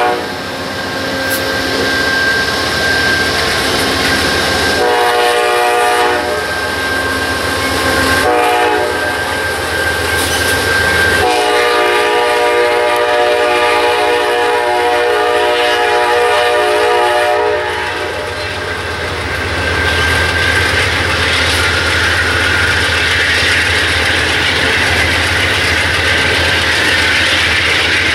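Horn of a passing Amtrak GE Genesis diesel locomotive sounding a series of blasts, the last held about six seconds. After the horn stops, the passenger cars roll by with steady wheel noise on the rails.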